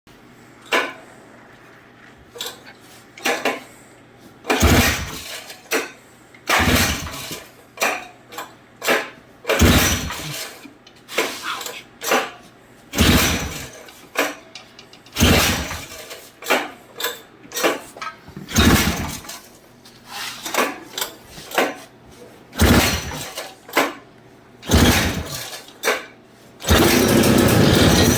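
Repeated short bursts of loud mechanical noise from work on the Honda Odyssey FL250's two-stroke engine, each about half a second long and coming every second or two, with a longer burst near the end.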